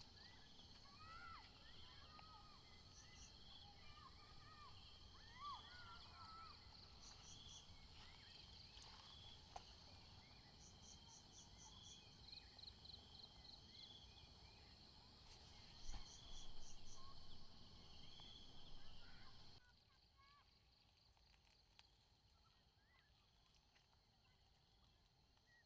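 Faint forest night ambience: insects chirping in short, evenly pulsed trains over a steady high insect drone, with scattered short whistled chirps. A knock and some louder rustling come about two-thirds of the way through. Then the background drops abruptly to a quieter hush.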